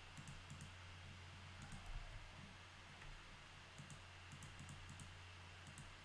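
Faint computer mouse clicks, single and in quick groups, scattered over a low steady hum.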